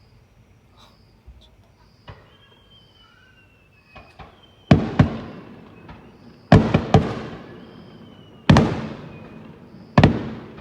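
Aerial fireworks shells bursting: a few small pops in the first four seconds, then loud booms about every two seconds from around halfway, each followed by a long rolling echo. A faint high whistle slides slowly down between some of the bursts.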